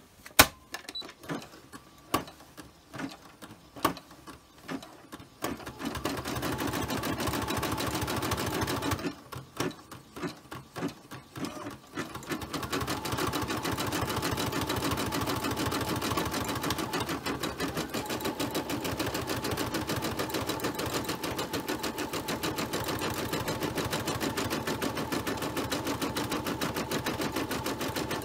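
Home embroidery machine stitching out a design. A few separate clicks come first, then a steady rapid needle chatter from about six seconds in. There is a short break of scattered clicks around the ten-second mark before the fast stitching resumes.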